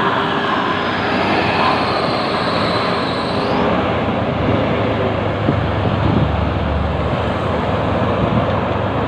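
Large intercity buses passing close by: steady engine and tyre noise, with a deeper rumble building from about halfway through.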